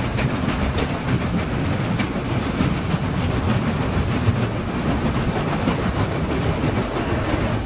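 Passenger train running at speed, heard from inside a coach: a steady rumble of wheels on rail with a faint clatter, as it crosses a river bridge.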